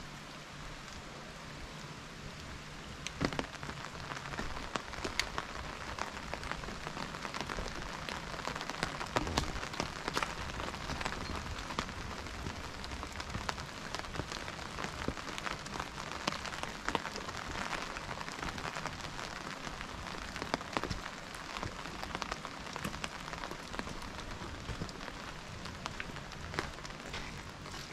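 Rain falling, with many separate drops ticking close by over a steady hiss.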